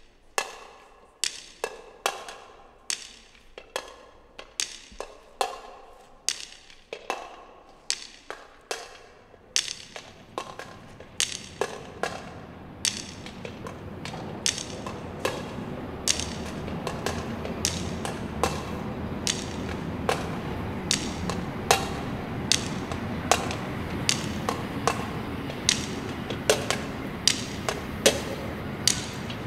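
Sharp percussion clicks with a short ringing tail, struck in a steady rhythm of about one and a half a second. About a third of the way in, the low rumble of a subway train rises underneath and then holds steady.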